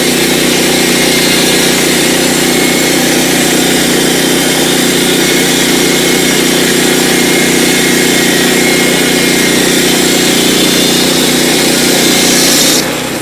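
A sawmill's engine running steadily under load as its blade cuts through a log, with a loud high hiss over the engine tone. Near the end the hiss cuts off suddenly and the sound drops to the engine running more quietly.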